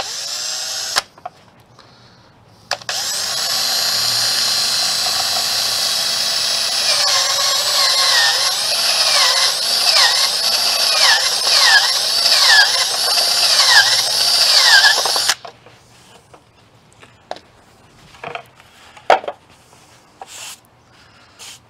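Power drill with a step bit boring a bulkhead-fitting hole of about 3/4 inch through a van's rear light housing: a short burst, then a run of about twelve seconds, its pitch dipping again and again in the second half as the bit bites. A few light clicks and knocks follow.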